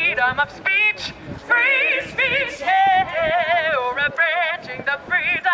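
A woman singing through a handheld megaphone, in held, wavering notes.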